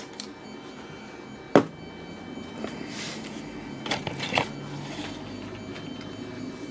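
Handling noise on a workbench: one sharp knock about a second and a half in, then a few lighter clicks and rustles as tools and the camera are moved, over a low steady hum.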